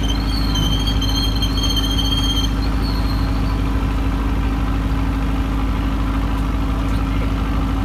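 An engine idling steadily with a constant low hum. A high-pitched whine runs over it and stops about two and a half seconds in.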